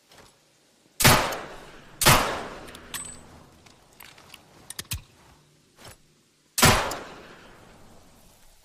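Double-barrelled derringer pistol firing: two sharp shots about a second apart, each with a trailing echo. Some small metallic clicks follow, then a third shot near the end.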